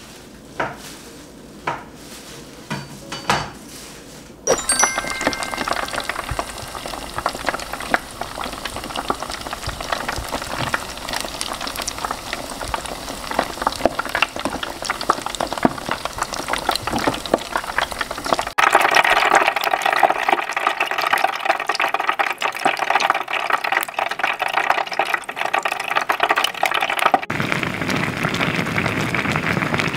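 Tteokbokki cooking in a pan: the sauce bubbles and sizzles with a dense crackle that starts about four seconds in, after a few knocks of utensils. Its tone shifts twice.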